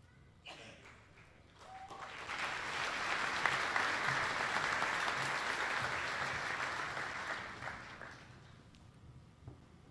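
Audience applauding, swelling up about two seconds in, holding steady, then dying away about six seconds later.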